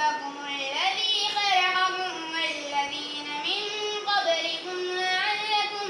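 A child's voice reciting the Qur'an in a slow melodic chant, with long held notes and gliding pitch between phrases.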